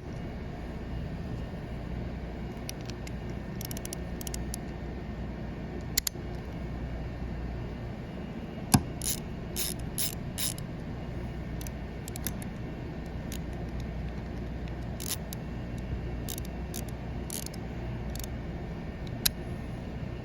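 Hand ratchet clicking in scattered short runs of sharp clicks, heaviest about halfway through.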